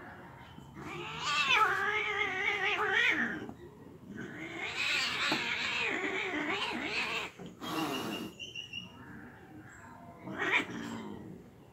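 Two domestic cats fighting, with angry caterwauling: a long wavering yowl, then a second long, rougher one, and a shorter yowl near the end.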